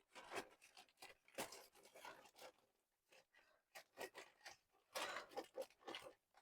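Faint, scattered rustling, crinkling and tearing of a shipping package's plastic wrapping being opened by hand, busier near the end.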